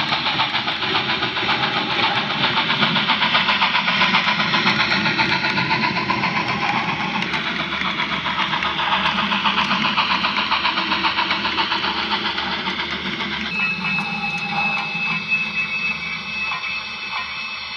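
HO-scale model steam locomotive's sound running as it pulls away with a train: a rapid, rhythmic steam exhaust chuff, about four beats a second. About three-quarters of the way through, the chuffing thins and a steady high tone comes in.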